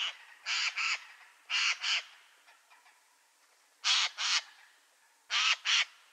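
Eurasian jay giving harsh screeches in quick pairs: four pairs, a second or more apart.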